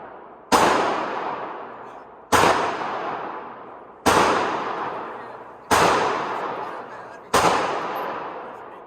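Five slow, evenly paced shots from a .45 ACP 1911 pistol, about one and a half to two seconds apart. Each sharp crack is followed by a long echo dying away.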